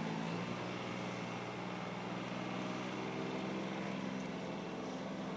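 Steady low motor hum at a fixed pitch, running evenly.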